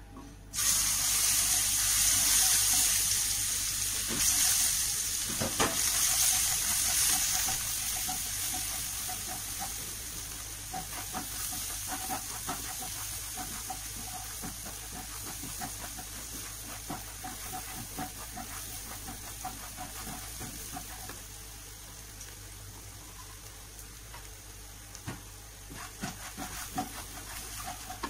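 Ground spice paste frying in hot oil in a wok: a loud sizzle starts suddenly about half a second in as the paste hits the oil and slowly dies down, with scrapes and taps of a spatula stirring it.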